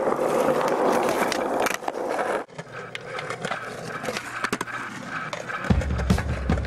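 Skateboard wheels rolling over rough concrete, with sharp clacks of the board. About two and a half seconds in the rolling cuts off abruptly, leaving quieter scattered clicks and knocks. Near the end a low steady drone comes in.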